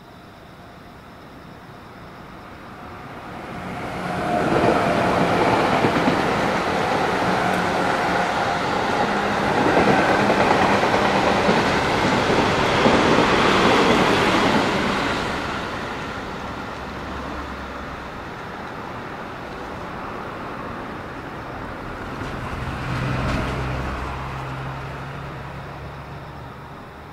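An electric commuter train passing at speed, with wheels rumbling and clattering on the rails; it swells as it approaches, is loudest for about ten seconds, then fades away. A second, smaller swell with a low steady hum comes near the end.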